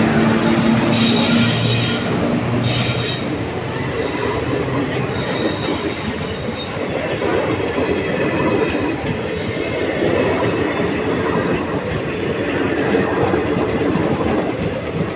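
Indian Railways WAG-7 electric locomotive passing close by with a steady low hum for the first couple of seconds, followed by the continuous rumble and clatter of passenger coaches' wheels running over the rails.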